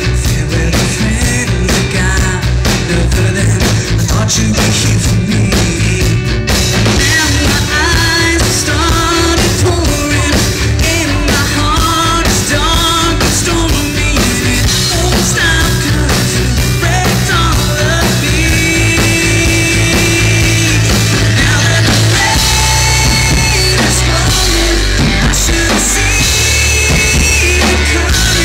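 Rock band playing live: a male singer over drums, bass and guitar. The band's sound fills out about six seconds in.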